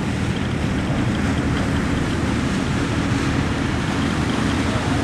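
Steady low rumble of a narrowbody twin-jet airliner's engines on final approach to land.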